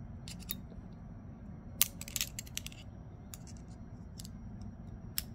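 Small metal parts of a folding knife clicking and tapping together as a liner piece is fitted into the handle: a few sharp clicks, the loudest about two seconds in, over a low steady hum.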